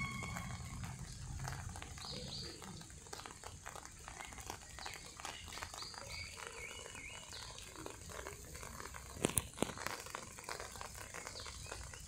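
Small birds chirping in short, repeated calls over a steady high hiss, with soft rustling throughout and two sharp clicks a little after nine seconds in, the loudest sounds.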